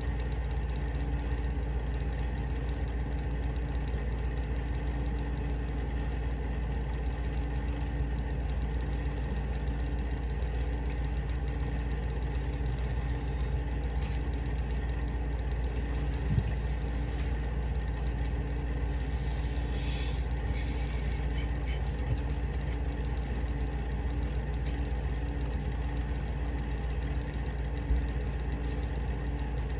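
Steady low mechanical hum from a running machine, with a few soft thumps about halfway and near the end.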